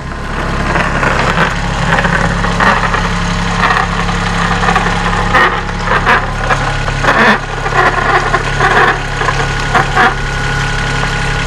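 Compact tractor engine running steadily at low revs as its loader bucket pushes a 2x4 against a wooden half-barrel planter, with irregular short knocks and scrapes as the barrel is shoved along concrete.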